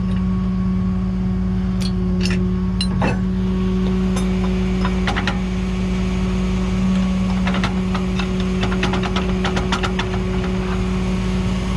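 A truck engine running steadily at idle, a constant low hum. Sharp metallic clicks and clanks sound over it, a few about two to three seconds in and a quicker run of them later.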